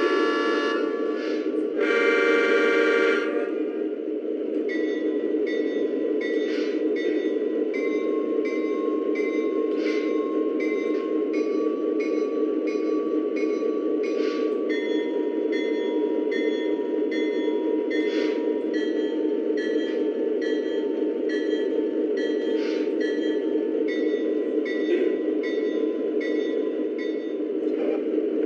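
Lionel Legacy tunnel motor diesel model locomotive's onboard sound system: a horn blast ending just under a second in, a second short blast about two seconds in, then the bell ringing steadily at an even beat. Under it runs the steady rumble of the locomotive running on the track.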